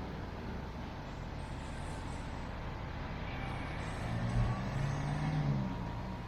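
Steady road-vehicle and traffic noise, with an engine hum that swells from about three and a half seconds in and fades again near the end.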